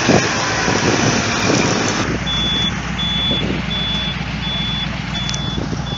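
A truck's reversing alarm beeping steadily, about six beeps at a little over one a second, starting about two seconds in over the steady running of a heavy diesel engine.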